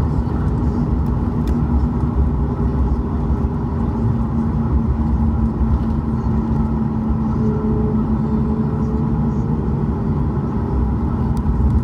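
Cabin noise in a Boeing 737 MAX 8 while taxiing, its CFM LEAP-1B engines at idle: a steady low rumble with a steady hum above it.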